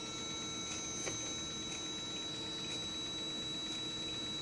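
Mercedes M119 S-Class throttle body energized on a test rig, its actuator giving a steady, even hum of a few high tones with a faint tick now and then. It is a nice healthy humming sound, the sign of a unit in good working order.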